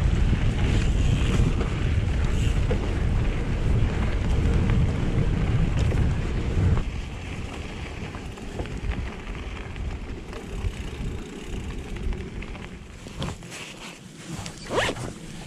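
Wind buffeting an action camera's microphone on a moving mountain bike, with the tyres rolling and rattling over a wet, muddy dirt trail. The low rumble is heavy for about the first seven seconds, then drops and stays quieter.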